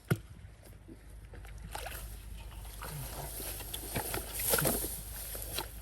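Water sloshing and splashing in a flooded, muddy rice field as people wade and grab fish by hand, with a sharp slap right at the start and the splashing building to its loudest near the end.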